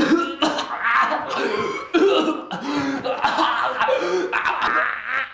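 A young man's loud, exaggerated coughing, choking and groaning: feigned death throes.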